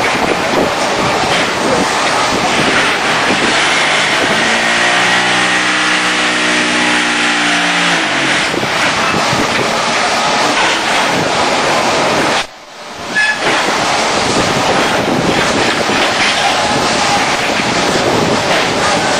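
Concrete block-making machine running: loud, continuous clattering and rattling of the moulding and conveying machinery, with a humming tone from about four to eight seconds in. The sound drops out briefly about two-thirds of the way through, then the machine noise resumes.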